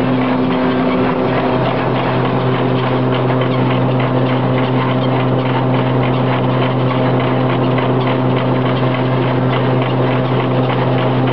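Foster threshing machine running at a steady speed, belt-driven by a Wallis & Steevens steam traction engine: a loud, steady hum holding a few even tones, over the clatter of the thresher's moving parts.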